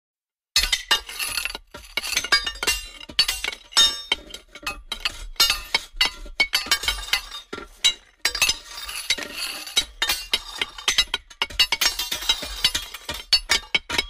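Metal struck over and over with a stone: a rapid, irregular run of sharp clinks starting about half a second in, each leaving a clashing, dissonant metallic ring.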